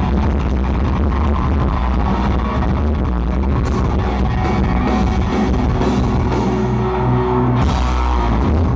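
Rock band playing live on stage with electric guitar and drum kit, loud and steady, recorded from within the audience.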